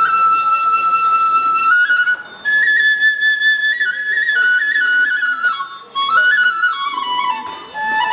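Kagura bamboo flute playing a melody of held notes that step up and down, with short breaks for breath about two, six and seven and a half seconds in.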